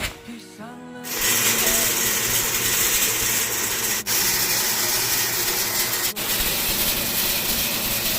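Rice winnowing machine running: a loud, steady rush of air with a mechanical rattle. It starts abruptly about a second in, after a moment of background music, and breaks off for an instant twice.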